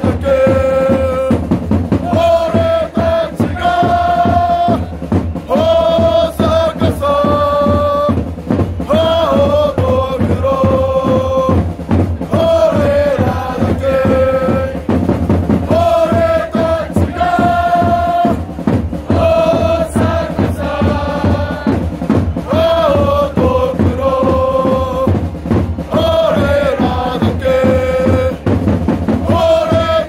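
Football supporters' chant: a repeating melody of long held notes sung over a steady, fast drum beat.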